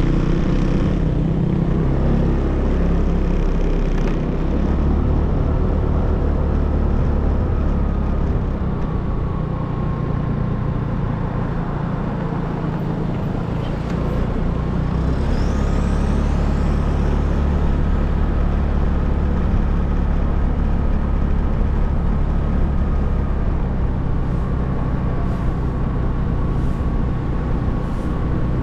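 A motor vehicle running steadily, a continuous low rumble with a faint steady whine above it and a brief high rising squeal about halfway through.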